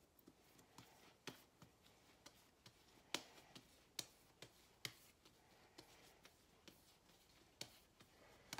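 Hands shaping a ball of bread dough, folding and pinching it underneath: faint, irregular clicks and pats about one to two a second.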